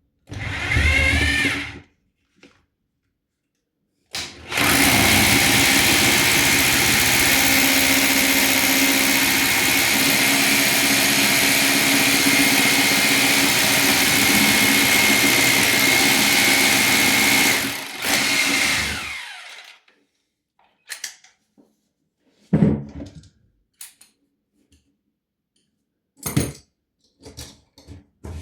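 Power drill boring down through the chipboard floor and joist toward the concrete floor slab. A short burst of drilling is followed by a long steady run of about thirteen seconds that winds down, then another short burst. Several separate sharp knocks come near the end.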